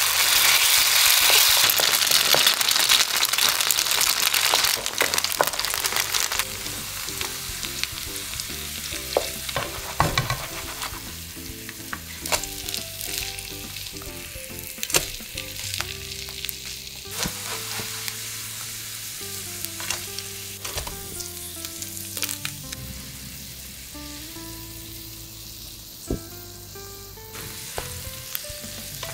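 A julienned potato, ham and leek mixture sizzling in hot oil in a nonstick frying pan. The sizzle is loud for the first six seconds, then settles to a quieter steady frying, with occasional sharp clicks and scrapes of the spoon and spatula against the pan.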